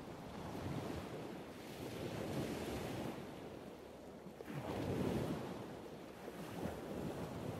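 Ocean surf ambience: a rushing wash of waves that swells and ebbs, with the largest wave surging in about four and a half seconds in.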